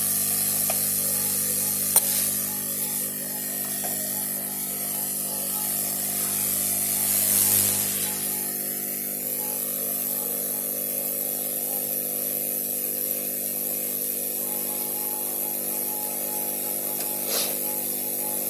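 Hot-air rework station blowing steadily: an even hiss of air over the unit's fan hum, swelling briefly about halfway through, with a couple of small clicks.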